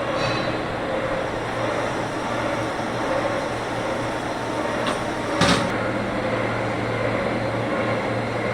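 CNC lathe running: a steady machine drone with a low hum, and one sharp clack about halfway through.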